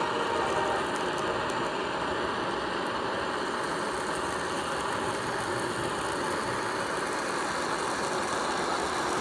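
Handheld butane blow torch burning with a steady, even hiss of the flame.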